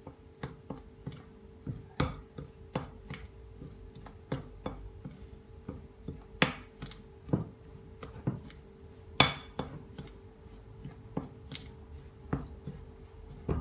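A spoon clinking and scraping against a glass mixing bowl while a stiff tahini and cocoa halva mixture is stirred: irregular sharp taps about once a second, two of them louder, over a steady low hum.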